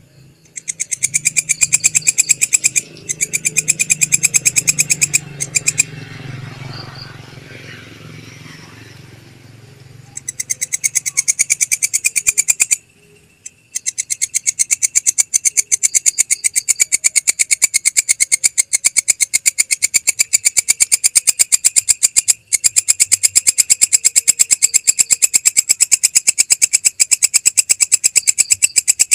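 Belalang kecek (a katydid) stridulating: loud, rapid trains of evenly spaced pulses in several bouts with short pauses, then continuous through the second half. A low rumble sits under the song for a few seconds before the middle pause.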